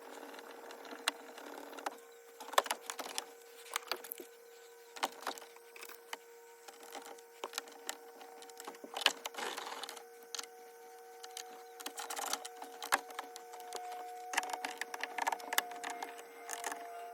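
Irregular clicks, taps and knocks of hands working on hard parts, over a steady hum.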